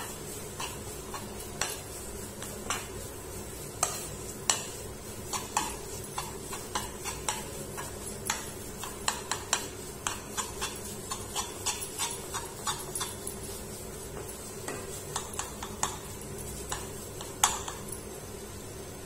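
Metal spoon scraping and tapping against a kadai while stirring thick khoa (milk cooked down for peda) nearly at the finished stage: irregular clicks and scrapes, with louder knocks about four and a half seconds in and near the end. A steady low hum runs underneath.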